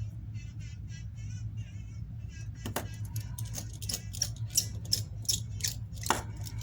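Light metallic clicks and taps, two or three a second from about three seconds in, as tiny screws are put back into the iPhone 8's internal cover plates, over a steady low hum.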